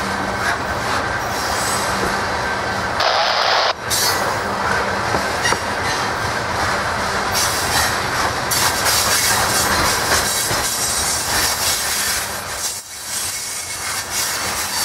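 Norfolk Southern freight train rolling past: a steady noise of the cars running on the rails, with a brief louder rush about three seconds in that stops abruptly.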